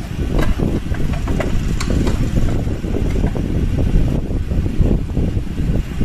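Scattered light metallic clicks and knocks from hand work on a car horn mounting behind the front panel, over a steady loud low rumble.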